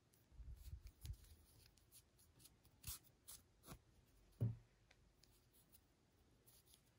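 Faint handling sounds of yarn being worked with a tapestry needle: soft rubbing, then a few light clicks, the sharpest about four and a half seconds in.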